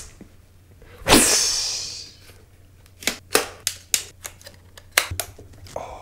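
A rustle of the camera's protective wrapping bag about a second in, then a quick, irregular run of sharp clicks and taps as the Canon C100 Mark II's top handle is fitted and its mounting knob turned.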